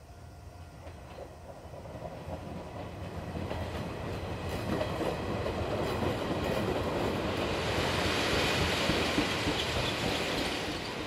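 A train approaching and passing, its running noise building over several seconds, loudest about eight seconds in, then easing off near the end.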